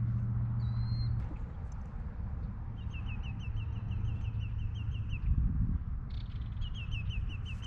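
A songbird singing two rapid runs of short, falling chirps. A low steady hum underneath dies away about a second in.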